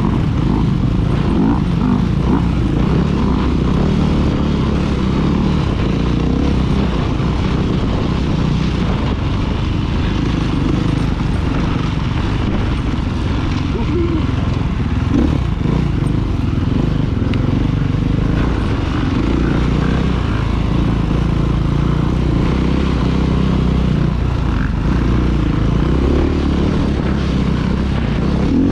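A 2016 KTM 500 EXC's single-cylinder four-stroke engine running continuously as the dirt bike is ridden off-road, its pitch rising and falling now and then with the throttle.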